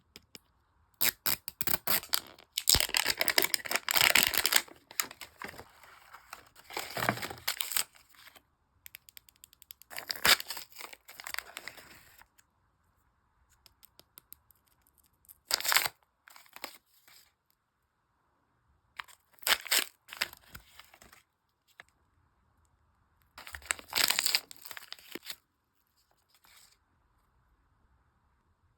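Mini Brands toy packaging being torn and crinkled open by hand in several separate bursts of tearing and crackling, with quiet pauses between them.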